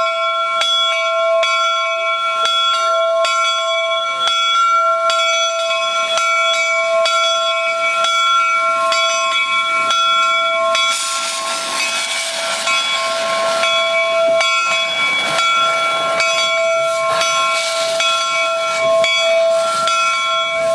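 A replica 4-4-0 steam locomotive's bell ringing steadily, about two strokes a second, over the hiss of escaping steam. The steam hiss swells about halfway through and again near the end.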